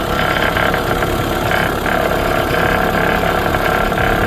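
An engine running steadily at idle, with a slight rise in level about when the sound begins.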